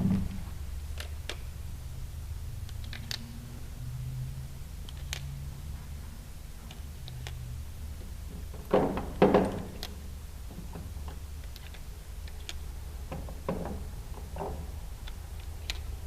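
Handling noise: scattered light clicks and taps, with a louder cluster of knocks about nine seconds in and a few more near the end, over a low steady hum.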